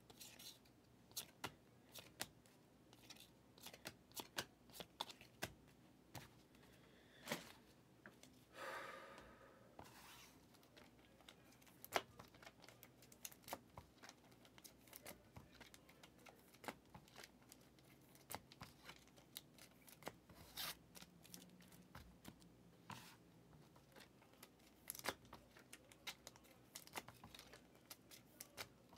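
Trading cards being handled and set down on a table mat: scattered soft clicks and taps, with a brief crinkly rustle about nine seconds in.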